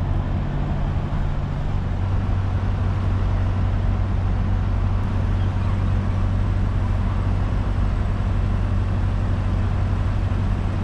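A vehicle engine idling, a low, even hum, over a steady haze of traffic noise.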